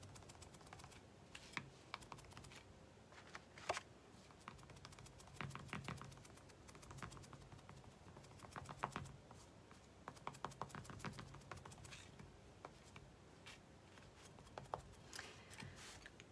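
Faint, quick tapping in short bursts: a wedge sponge dabbing paint onto a small laser-cut MDF ornament lying on the table, with soft thuds under each burst.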